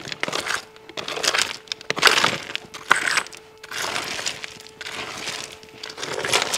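Loose stones and rubble being scraped and raked by hand, crunching and clinking in uneven bursts. A metal detector's steady tone sounds on and off, its signal for buried metal.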